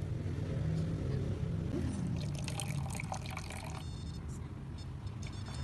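Water being poured into a container to raise the level over an Arduino water level sensor. Faint high steady tones join about four seconds in.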